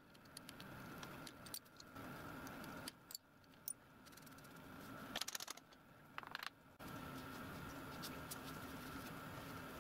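Faint small metallic clicks and clinks of hand tools and a steel workpiece being handled at a drill-press vise, over a faint steady hum. The clinks come thickest about five seconds in and again about six seconds in.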